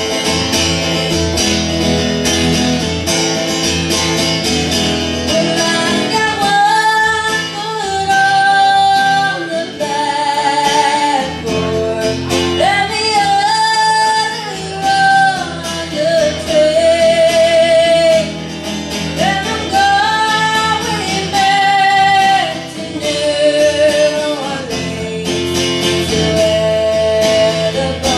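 Live acoustic guitar strumming, joined about six seconds in by a woman singing a melody of long held notes over it.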